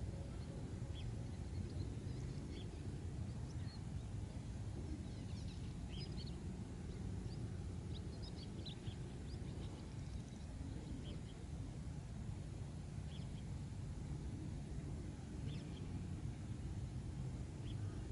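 Open-air ambience: a steady low wind rumble on the microphone, with short, high bird chirps scattered through it, most of them in the middle.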